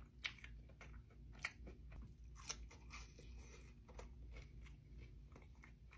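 Faint, close-up chewing of crunchy fried food: irregular crunches and mouth clicks, with a few louder crunches in the first half.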